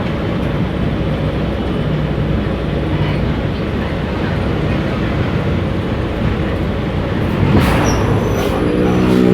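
Volksbus 17-230 city bus engine running while under way, heard from inside the cabin along with road and body noise. A short hiss comes about seven and a half seconds in, and near the end a stronger, steady engine tone comes in as the engine pulls harder.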